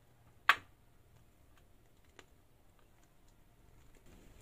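Quiet handling noise from piping cream out of a plastic piping bag, with one sharp click about half a second in and a few faint ticks after it.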